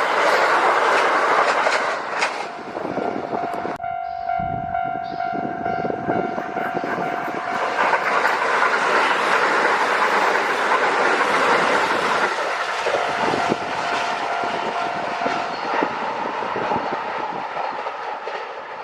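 Kintetsu Nagoya Line train passing close by at speed, wheels clattering over the rail joints. A long steady tone sounds from about three seconds in and again near the middle, and the noise fades near the end as the train draws away.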